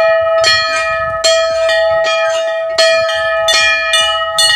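Large hanging temple bells rung by hand, their clappers pulled against the bell, about eight strikes at uneven intervals of roughly half a second to a second. Each strike rings on with a sustained tone that overlaps the next, and a second bell with a higher pitch joins in.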